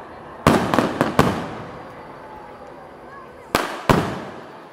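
Aerial fireworks bursting overhead. A quick run of four bangs comes about half a second in, and two more about three and a half seconds in; each bang echoes away.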